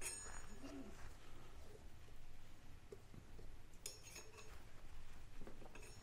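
Scooter wheel spun by hand, its bent brake disc lightly catching the brake pad: faint metallic clinks that ring briefly, once at the start and again about four seconds in.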